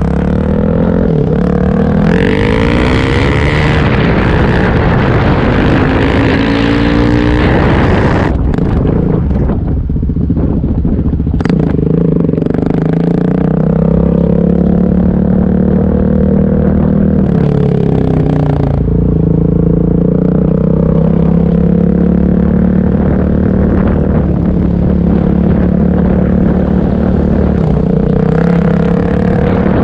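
Suzuki DR-Z400S single-cylinder four-stroke running through an MRD Z-Pro exhaust with the baffle removed, under way on the road. It revs up through the gears in the first several seconds, each rise in pitch broken by a shift. Then it cruises steadily, eases off briefly in the middle, and picks up again near the end.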